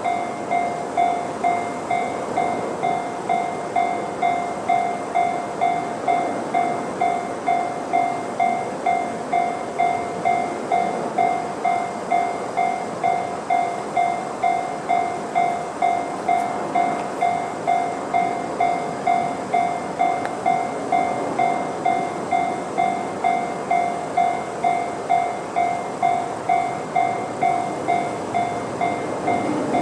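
Japanese level-crossing electronic alarm sounding the JR standard tone: an evenly repeating electronic ding that warns the crossing is closed. Under it, the steady rushing noise of a train running past.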